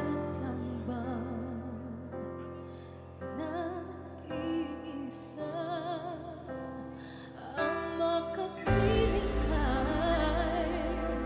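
A woman singing live into a microphone with vibrato over soft, sustained accompaniment. About nine seconds in, a fuller band with heavy bass comes in and the music gets louder.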